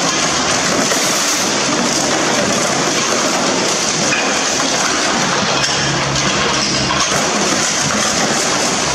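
A hydraulic excavator's demolition grapple crushes the rear body of a Lamborghini Murciélago, giving a dense, continuous crackling and crunching of breaking panels. The excavator's engine hums underneath.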